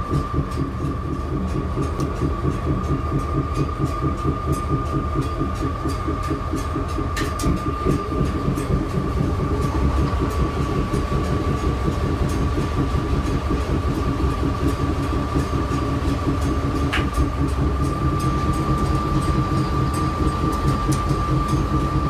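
Caterpillar diesel engine of a GE 44-ton switcher locomotive idling, heard from inside the cab: a steady, even low pulsing with a constant high-pitched whine over it.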